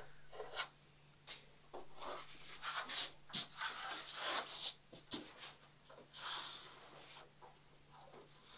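Pencil scratching on wood in short, irregular strokes, marking along the edge of a plywood plank, mixed with hands rubbing over the wood.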